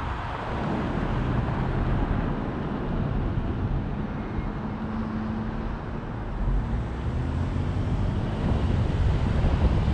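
Wind buffeting the microphone over a steady low rumble of road and traffic noise from travelling along a road, with a faint hum around the middle.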